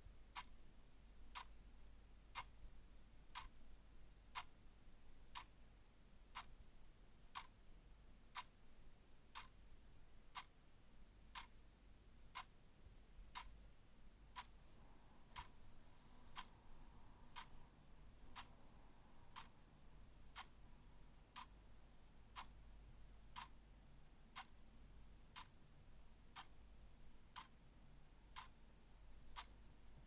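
Faint clock ticking, one even tick about every second, over a faint low hum.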